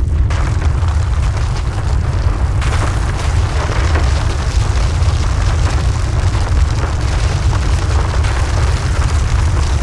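Loud, steady, deep earthquake rumble sound effect, with a noisy rushing layer above it that grows stronger about two and a half seconds in.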